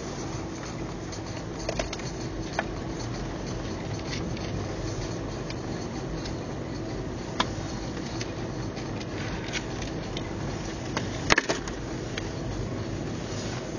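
Car driving on packed snow and ice, heard from inside the cabin: a steady engine and tyre hum with a few sharp clicks and knocks, the loudest about eleven seconds in.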